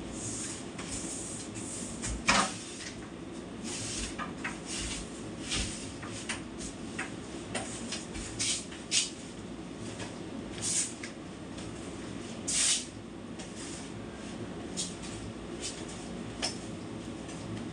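Irregular knocks, clicks and short scraping noises of household items being handled and set down during kitchen cleaning, over a steady low hum. The sharpest knock comes about two seconds in.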